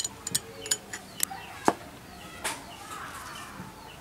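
Steel bolts and nuts clinking against a drilled motorcycle sprocket plate and its pipe handle as a homemade CVT clutch holder is put together by hand. About eight sharp, uneven metallic clicks, the loudest a little before the middle.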